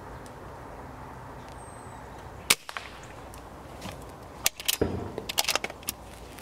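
A single sharp air rifle shot, from a BSA Super 10, about two and a half seconds in, as the pellet takes a rook off its perch. Around two seconds later comes a short run of clattering clicks and knocks with a dull thump.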